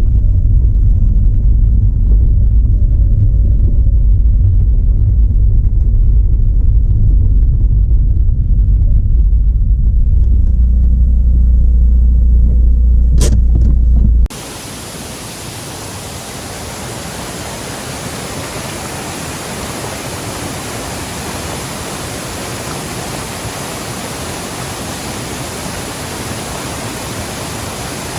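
Mazda RX-8 driving, a steady low rumble of engine and road noise, cut off abruptly about halfway through by the steady rushing of a waterfall.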